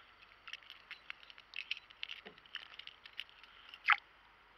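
Scattered light clicks and ticks of fishing tackle as a small peacock bass is reeled up to a kayak, with one louder sharp sound about four seconds in.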